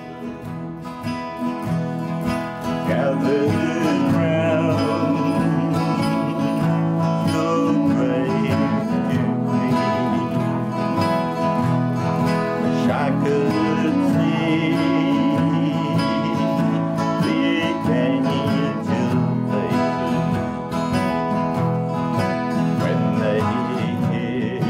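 Acoustic guitar playing country-style music, coming up in level over the first few seconds and then holding steady.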